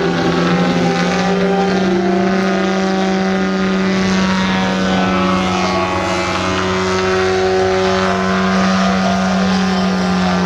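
Engine and propeller of a 41%-scale radio-controlled Extra 330SC aerobatic model aircraft running steadily in flight, with its note shifting somewhat in pitch as it manoeuvres.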